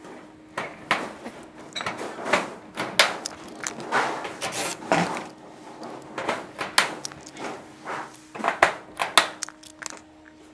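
Hand pop rivet gun squeezed over and over, riveting the siliconed corner join of a steel roof flashing: a run of metallic clicks and crunches with sharp snaps as the rivet mandrels break, coming in clusters with short pauses between.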